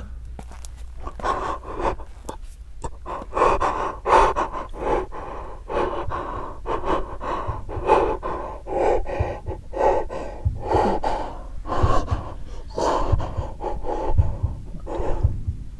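A man breathing fast and panicked, short gasping breaths about two a second, over a low steady hum.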